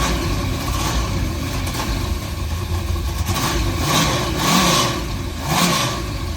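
Holden VN Calais engine running, with the revs rising and falling in four short blips in the second half.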